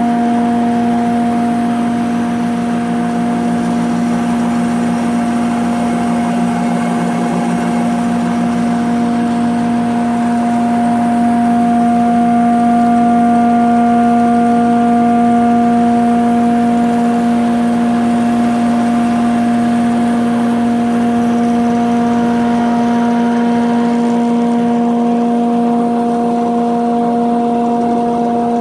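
Delta DC-580 heavy-duty planer with a 5 hp single-phase motor running steadily, a constant hum of unchanging pitch.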